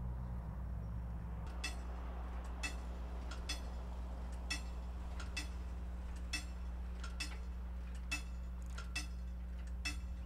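Magnetic Flagman wigwag crossing signal in operation: its swinging mechanism clicks with a short metallic ring about once a second, with fainter ticks between, over a steady low hum.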